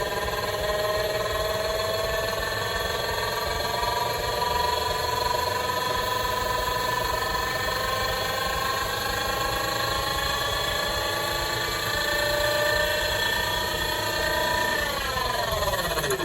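Panasonic drum-type washing machine's drum motor running with a whine of many tones whose pitch slowly climbs as the drum speeds up, then falls away quickly near the end as the drum slows down.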